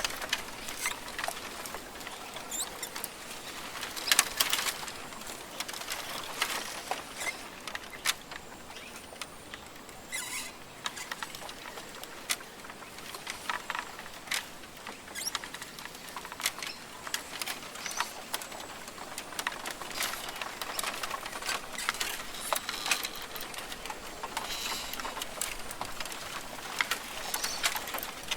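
Rainforest ambience: a soft steady hiss under irregular light pattering and crackling clicks, which bunch together into denser spells a few times.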